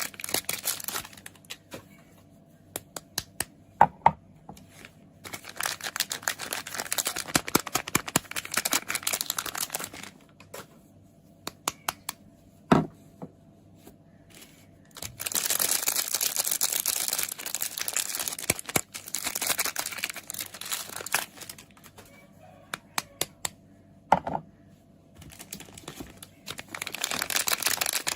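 Soap packaging being unwrapped by hand, crinkling and tearing in bursts of dense crackle, with scattered sharp taps and clicks in the pauses between them. There is one heavier knock about halfway through.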